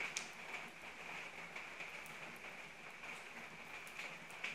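Steady rain falling: an even hiss with scattered drops ticking close by, one sharper drip shortly after the start and another near the end.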